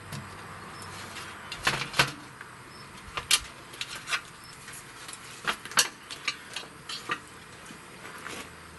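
Metal tongs clacking and scraping against a metal sheet pan as racks of ribs are lifted and turned: a string of sharp, irregular clicks, loudest about two seconds in and again around three and six seconds in.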